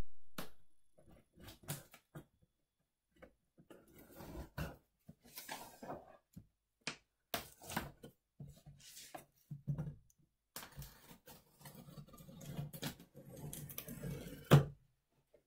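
Hands handling a cardboard shipping box, with scattered taps, scrapes and rustles of cardboard, and a knife slitting its packing tape. A louder knock comes near the end.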